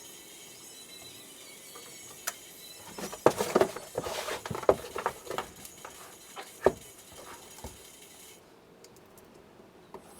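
A run of irregular sharp knocks, clicks and scrapes, clustered in the middle few seconds, over a faint steady hiss that cuts off suddenly near the end.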